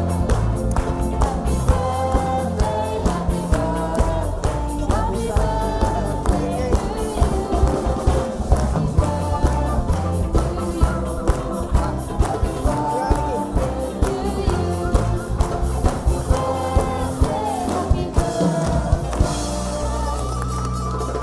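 Lively music with singing over a steady beat and bass, from a small band with a brass horn.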